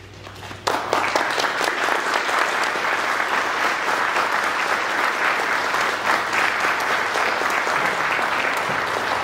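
Audience applauding, starting suddenly under a second in and going on steadily.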